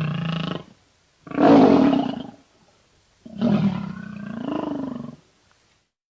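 Big cat roar sound effects: three roars, the first cut off about half a second in, the loudest about a second and a half in, and a longer one that ends about five seconds in.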